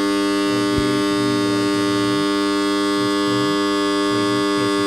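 Single-phase oil motor starter buzzing with a loud, steady electrical hum. This is the noise fault the starter is being repaired for.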